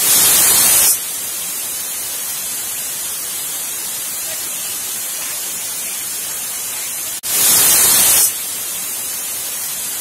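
Pressure cooker releasing steam with a steady hiss, and two louder bursts of about a second each, one at the start and one about seven seconds in: the whistle going off as the cooker reaches full pressure.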